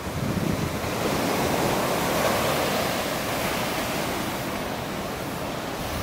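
Sea surf breaking and washing up a sandy beach: a steady rush of water that swells about a second in and slowly eases off.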